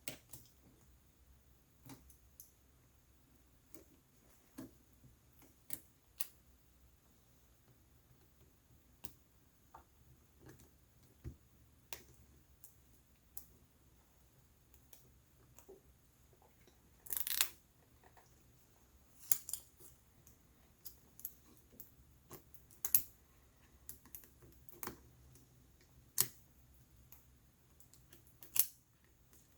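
Sparse light clicks and taps of small plastic and metal laptop parts being handled while cables are pulled from their connectors on an opened laptop's system board. A brief scraping rustle comes a little past halfway.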